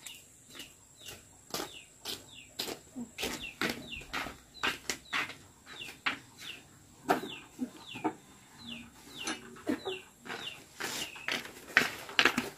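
Chickens clucking and peeping: a busy run of short falling peeps and quick sharp clucks throughout, loudest near the end.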